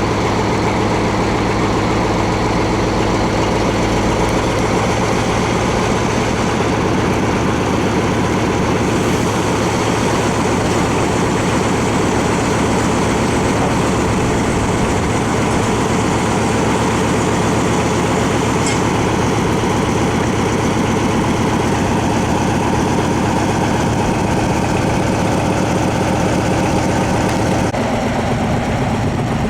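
Diesel engine of a truck-mounted crane running steadily, its note shifting slightly near the end.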